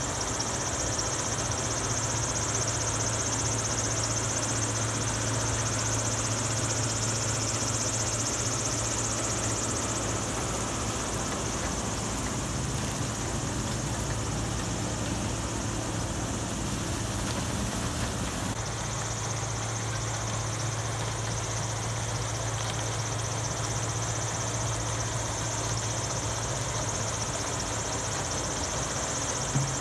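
Heavy engines running steadily, a low hum with a constant high hiss over it; the sound shifts slightly about 18 seconds in.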